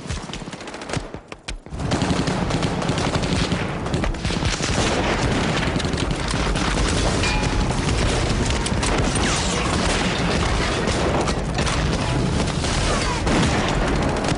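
Battle sound of dense rifle and machine-gun fire mixed with booms: a few scattered shots at first, then a continuous barrage from about two seconds in.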